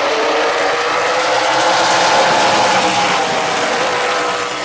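A pack of stock car engines running together as the field comes past under the green flag, a dense buzzing drone that swells about two seconds in and eases slightly near the end.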